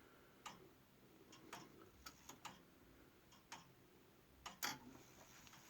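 Faint ticking of a Gustav Becker grandfather clock's movement, about one tick a second, with a few extra clicks in between.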